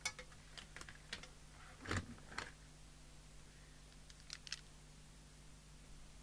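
Faint, scattered clicks and light taps of small parts being handled as the fuse holder of a mobile CB radio is opened to check its fuse, with one louder knock about two seconds in.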